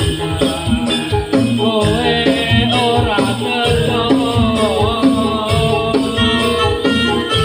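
Live Javanese buto gedruk dance music from the troupe's stage band. Drums beat a steady rhythm under a wavering melody line, with shaken metal jingles over the top.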